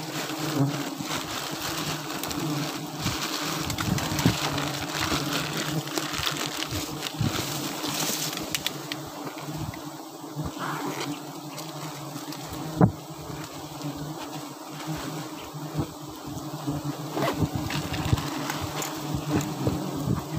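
A swarm of wild honeybees buzzing around their opened nest, a steady dense hum, with a few sharp knocks close to the microphone.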